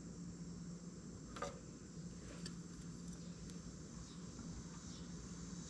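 Faint handling sounds from a metal ruler and guide stick worked against a motorcycle fender: one sharp tap about a second and a half in, then a few light ticks, over a steady low hum.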